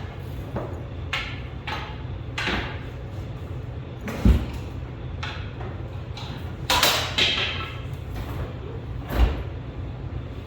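Metal clunks, knocks and scraping as a freed transmission on a transmission jack is worked out from under a lifted truck, with heavy thumps about four and nine seconds in, over a steady low hum.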